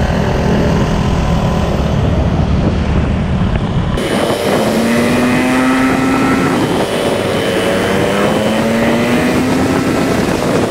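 Small motorbike or scooter engine running under way, with wind noise. The sound changes abruptly about four seconds in: the heavy low rumble drops away and the engine's note climbs steadily twice as the bike accelerates.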